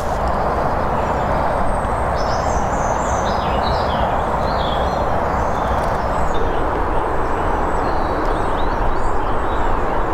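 Steady outdoor background rumble with no single event standing out, and small birds chirping now and then, mostly in the first few seconds.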